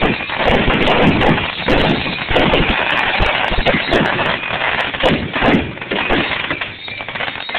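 Fireworks going off in a dense, continuous run of pops and bangs, many close together.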